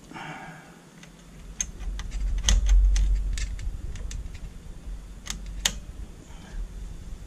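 Scattered sharp clicks and light rattles of alligator-clip test leads being handled and clipped onto wire connectors, with a low bump against the bench about two and a half seconds in.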